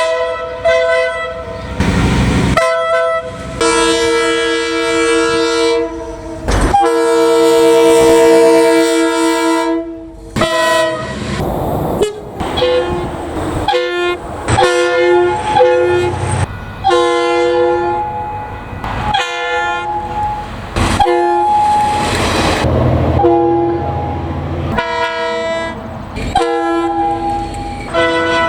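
Multi-note train horns sounding a steady chord, in a run of short and long blasts, several held for about three seconds, from one train after another with abrupt cuts between recordings.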